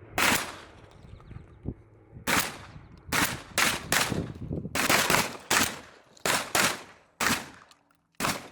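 Several shotguns fire on a line: about a dozen shots at irregular spacing, some nearly overlapping, as multiple shooters fire in a drill. The last shots come more sparsely near the end.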